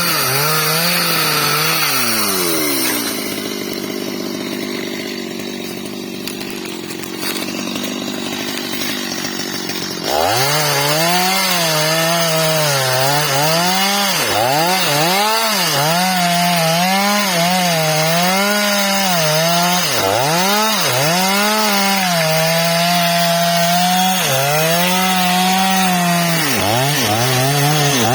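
Stihl MS 250 two-stroke chainsaw cutting wood, its engine pitch sagging under load and recovering again and again. A few seconds in it drops to a quieter, steadier note for about seven seconds, then comes back loud at full throttle and keeps bogging and recovering in the cut.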